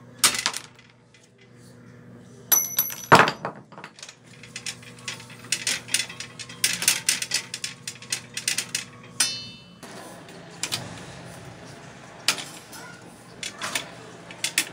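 Hammer blows and metal clinking on a rusted old bicycle's crank and pedal as they are knocked and worked loose with hand tools: irregular sharp knocks and rattles, the loudest a ringing clang about three seconds in.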